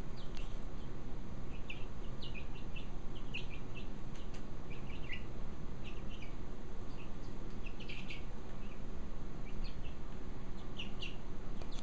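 Young chickens peeping: short high chirps in scattered clusters throughout, a few sliding down in pitch.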